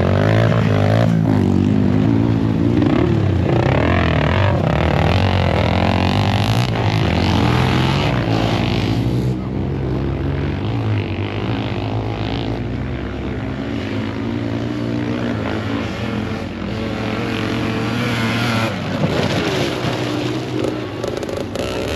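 Dirt bike engines revving as enduro riders ride past, the pitch rising and falling with the throttle. It is loudest in the first half, eases off in the middle and picks up again near the end.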